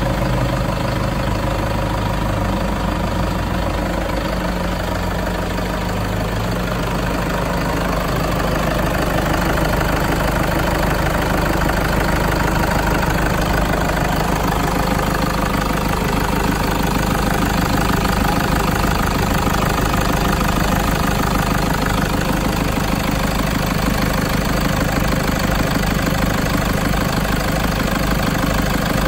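Toyota Sport Rider's 1KD-FTV 3.0-litre four-cylinder common-rail turbodiesel idling steadily, a little louder from about eight seconds in.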